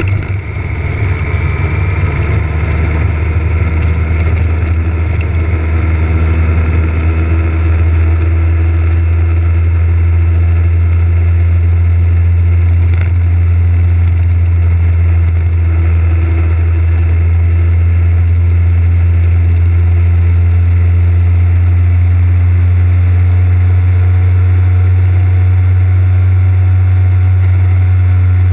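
Motorcycle engine running steadily while the bike cruises along a road, with a strong low rumble. It grows a little louder over the first few seconds, then holds even.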